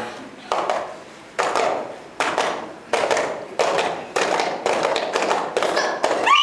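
A group of children on stage makes a run of about ten sharp, hand-made percussive beats, each with a short ring, coming closer and closer together. A voice glides up into a shout right at the end.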